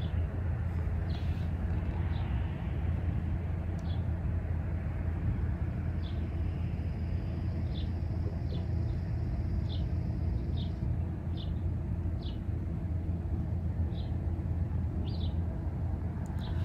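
A chipmunk chipping: short, high chip calls repeated roughly once a second, over a steady low rumble. A thin, high, steady tone runs for a few seconds in the middle.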